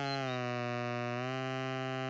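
A single held musical note with many overtones. It dips slightly in pitch at the start and rises back about a second in.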